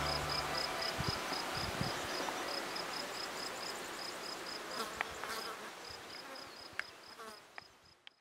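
Insects in a summer meadow: a high-pitched chirp repeating about four times a second over a faint buzzing hiss, with a few short sharp chirps later on, fading out toward the end.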